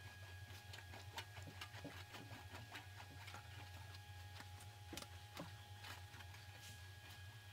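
Faint, irregular light ticks and clicks of a sheet-metal fender panel being rolled back and forth through a wide-wheeled English wheel, over a low steady hum.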